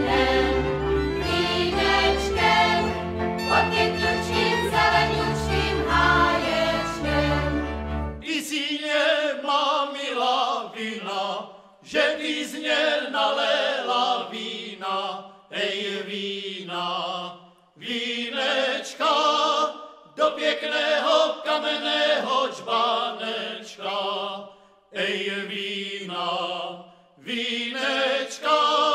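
Singing with instrumental accompaniment and a steady bass line. About eight seconds in, the accompaniment stops and the voices carry on unaccompanied, in phrases separated by short pauses.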